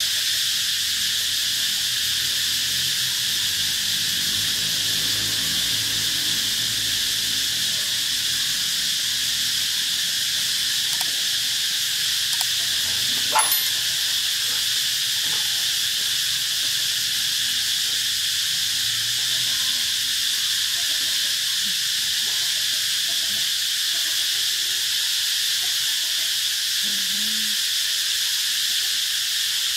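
Golden retrievers play-fighting, with low growling in the first seconds, over a steady high hiss. A single sharp click sounds near the middle.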